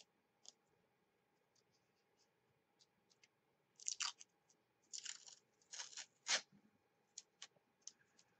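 A roll of masking tape being handled and pulled off the roll. There are faint ticks, then several short, crackling rips about halfway through as the tape peels away.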